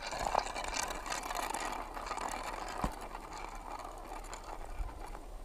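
Footsteps crunching across hard-crusted snow, with a dense crunching noise that eases off in the second half.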